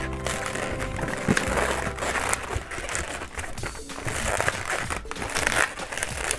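A long latex twisting balloon being bent and twisted by hand, the rubber rubbing and crinkling against itself and the fingers, with small clicks. Background music plays for the first second and a half.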